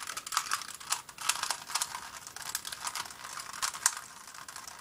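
Plastic Rubik's Cube layers being twisted quickly to scramble it: rapid, irregular clicking and clacking, several clicks a second, thinning out near the end.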